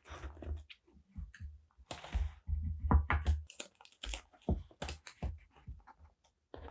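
Paper and stickers being handled at a desk: a string of close-up taps and clicks with bursts of crinkling paper, and a few heavier knocks about halfway through.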